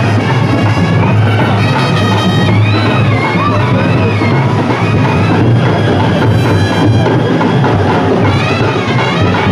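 Kerala band melam: a brass band plays a wavering melody over loud, dense drumming with a deep bass drum.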